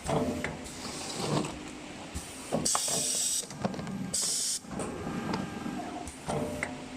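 Automatic tape-wrapping machine running, with mechanical clatter and clicks. Two sharp hisses of air come near the middle.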